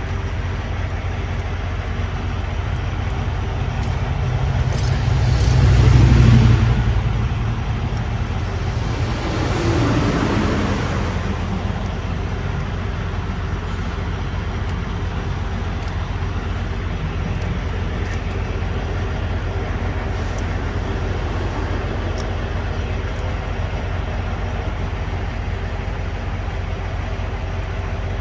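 Steady low rumble of highway traffic, with two vehicles passing: a louder one about six seconds in and a second about ten seconds in, its pitch dropping as it goes by.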